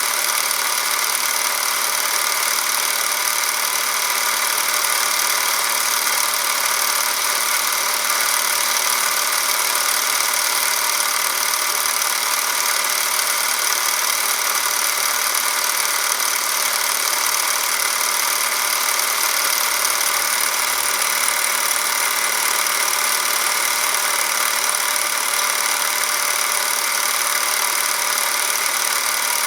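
Porst Reflex ZR 422 Super 8 film camera running as if filming: its motor and film transport whir steadily and high-pitched, without a break.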